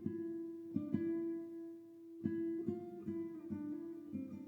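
Guitar music: a slow solo acoustic guitar interlude, single plucked notes left to ring over a sustained low note.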